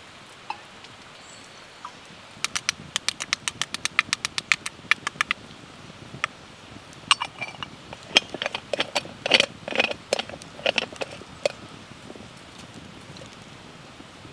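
Quick, even run of small metal clicks, then irregular louder clinks and knocks, as a stovetop moka pot is handled, twisted together and set down on a stone.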